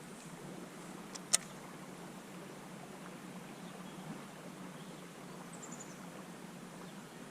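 Steady outdoor hiss of a river setting, with one sharp click about a second in and a short run of high chirps falling in pitch near six seconds.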